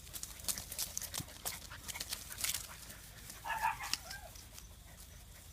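Newfoundland puppy giving a short, high whimper about three and a half seconds in, after a run of light clicks and scratches.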